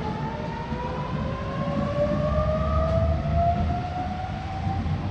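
Double-deck electric suburban train pulling out of the platform, its traction motors giving a whine in two tones that slowly rises in pitch as it gathers speed. Under the whine is a low rumble of wheels on the rails, which swells about two seconds in.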